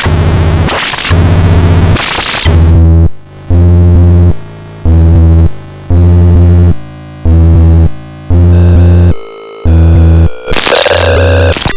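Heavily distorted, glitchy electronic synth music: a loud bass note pulses in a steady rhythm about once a second under crunchy, noisy upper layers, with a brighter burst of noise near the end. The grit is the destructive analog-style distortion and glitch processing of the MCTXN plugins.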